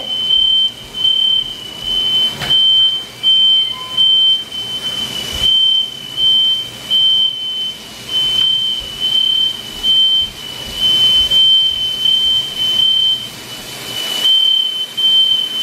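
Household smoke alarm sounding: a loud, high-pitched beep repeating about one to two times a second without stopping. It has been set off by cooking.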